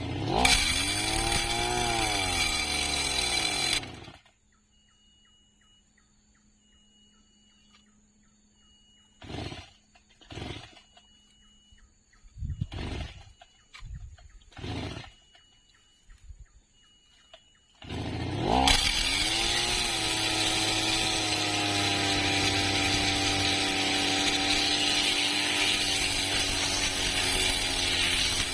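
Brush cutter engine revving up and back down, then going quiet apart from a few short bursts; about 18 seconds in it runs up again and holds at a steady high speed.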